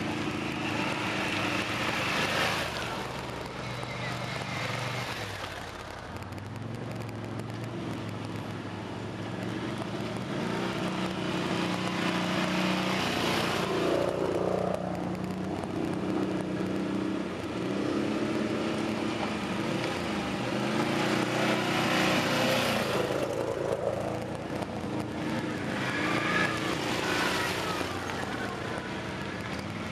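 Several quad bike (ATV) engines running as the quads ride past one after another on a dirt trail. The engine note swells and rises as each one approaches and eases off as it moves away, with the loudest passes about two seconds in, near the middle and near the end.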